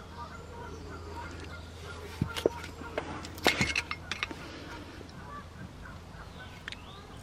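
Scattered light metallic clicks and taps from a screwdriver and hands working rubber slide-pin boots off a cast-iron brake caliper, clustered about two to four seconds in, over a faint wavering squeak-like tone.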